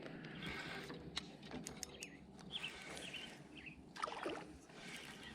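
Quiet on-the-water ambience aboard a small boat: faint water and hull noise, scattered light clicks and knocks, and a few faint bird chirps.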